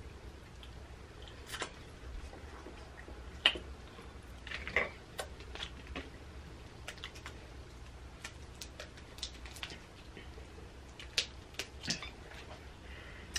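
Crab leg shells being cracked and pulled apart by hand: scattered sharp cracks and clicks at irregular moments, over a faint low hum.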